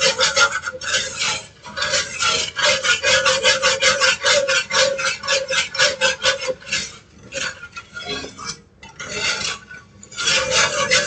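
Milk gravy being stirred in a cast-iron skillet, a utensil scraping across the pan bottom in quick strokes, about five a second, with a couple of short breaks in the second half.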